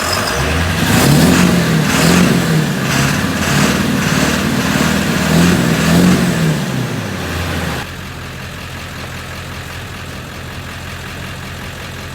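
Ford 7.3 L Powerstroke V8 turbo-diesel being revved repeatedly, its pitch rising and falling several times, then dropping back suddenly to a steady idle about eight seconds in.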